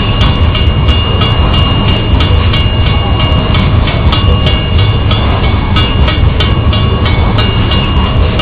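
BNSF coal hopper cars rolling past a grade crossing: a loud, steady low rumble of steel wheels on rail with frequent clicks as the wheels pass over the rail joints. A steady high ringing tone from the crossing signal's bell runs over it, breaking off and coming back.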